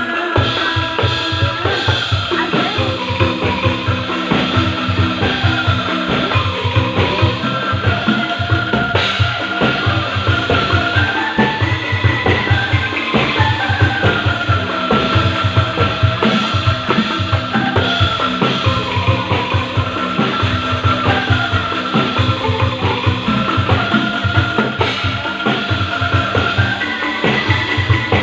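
Music with a steady, fast drum beat and a melody line that slides between held notes.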